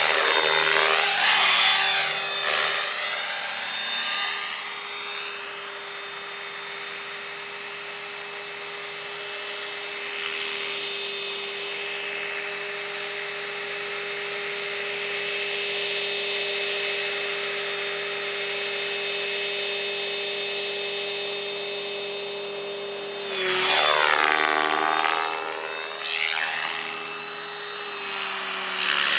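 Stretch Protos electric RC helicopter flying, its brushless motor and rotor blades giving a steady high whine. The whine gets louder, with a sweeping swish, as the helicopter passes close near the start and again a few seconds before the end.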